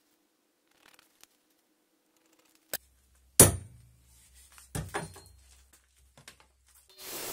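Light clicks, then two sharp metal knocks with a short ring, about a second and a half apart, at a square steel tube clamped in a bench vise. Near the end a power drill starts up and runs steadily.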